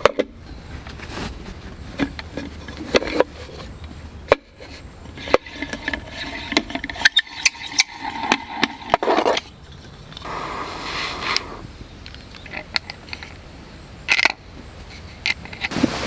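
Hands handling a round wooden mosquito-coil holder and its cloth drawstring bag: cloth rustling, wood scraping, and a scattered series of sharp clicks and knocks.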